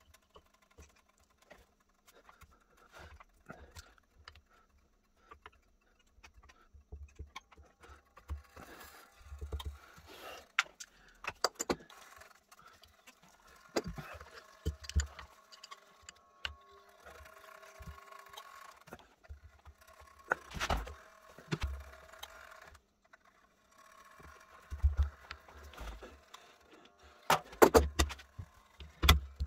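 Metallic clinks and knocks of an adjustable spanner and a leather pad being fitted and shifted on an antique percussion pistol held in a bench vise, in an attempt to turn its seized barrel. The knocks come scattered, and the loudest come near the end.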